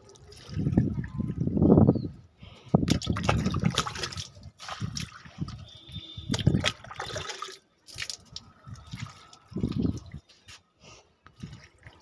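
Water poured from a plastic mug onto the soil of potted plants, several separate pours with short gaps between them.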